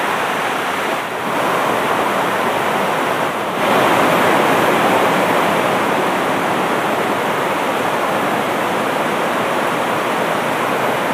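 Shallow rocky river rushing over and between boulders in white-water rapids: a steady, dense rush of water that grows louder about three and a half seconds in.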